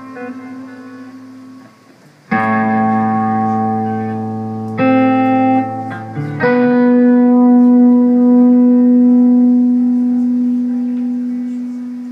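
Electric guitar playing sustained chords: a new chord is struck about two seconds in, another near five seconds, and a last one at about six and a half seconds rings on steadily and slowly begins to fade.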